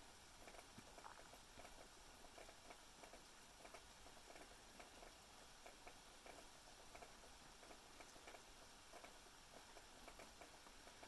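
Faint rain patter: light, irregular drips and ticks of falling raindrops.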